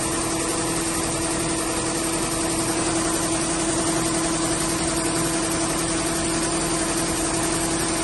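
Wishope corn combine harvester's engine running at a steady speed: an unchanging hum over a wash of machine noise.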